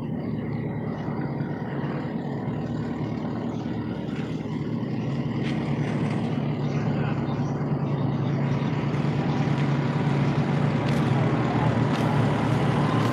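An engine running steadily nearby, a low rumble that grows louder over the second half.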